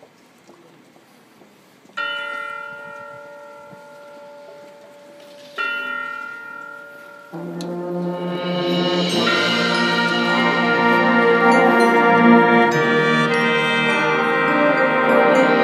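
Marching band show opening: two single chime-like bell strokes about three and a half seconds apart, each ringing and slowly dying away, then the full brass section comes in with a held chord that swells louder and carries on as music.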